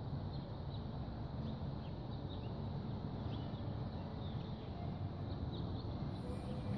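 Outdoor ambience: a steady low rumble, with faint, short chirps from small birds scattered through it.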